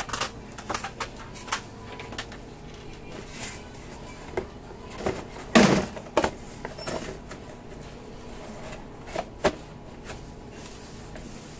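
Scattered knocks and clicks of a person stepping up onto a step ladder and down again, with a louder thump a little past halfway and two sharper knocks near the end.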